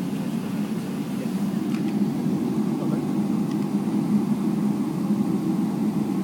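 Steady low cabin hum inside a Boeing 777-300ER as it taxis, the engines at low thrust.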